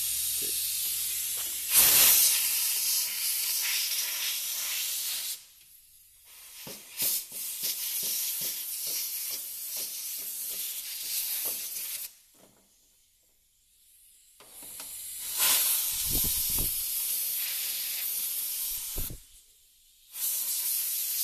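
Compressed-air blow gun hissing in four long blasts with short breaks between them, blowing metal drill shavings out of freshly drilled holes before riveting.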